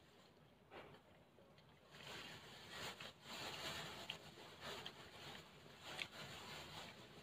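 Faint sounds of a person eating cup noodles: soft chewing and slurping, with a few short clicks, the sharpest about six seconds in.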